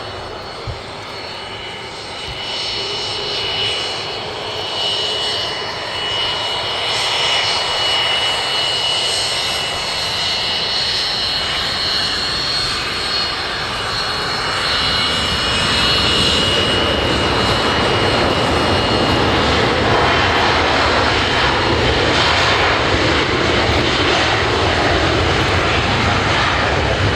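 Fixed-wing aircraft engine running steadily with a thin high whine over it, growing louder over the first two-thirds and then holding.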